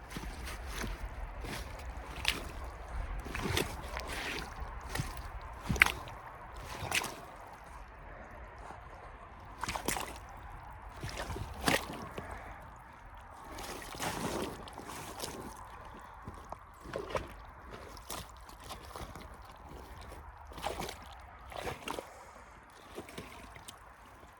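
Muck Arctic rubber boots squelching and sloshing through wet peat-bog mud, irregular sucking splashes about a second apart as they are pulled out of the mud and pressed back in.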